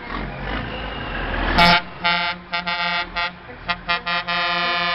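Heavy tow truck's air horn: one short blast, then a run of quick toots, then a long held blast near the end. Under it, the low rumble of truck engines passing.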